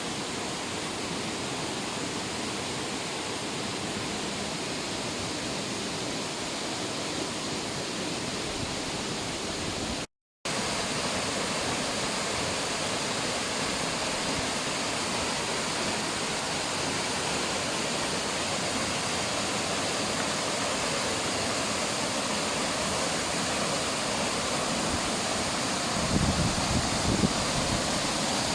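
Mountain waterfall rushing steadily, its stream running high and turbulent after snowfall. The sound cuts out completely for a moment about ten seconds in, and near the end wind buffets the microphone with low rumbles.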